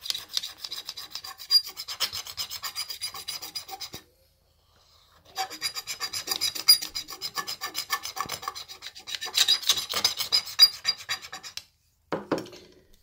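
A knife tip scraping rapidly back and forth across a Galaxy S8 glass screen protector in a scratch test, several strokes a second, grating on the glass. It runs in two bursts, with a pause of about a second and a half around four seconds in.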